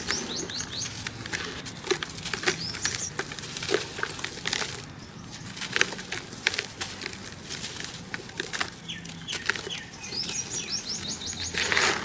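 Crunchy, hardened sand being crumbled in a bucket: a steady, irregular crunching and crackling. Runs of quick high chirps come near the start and again near the end.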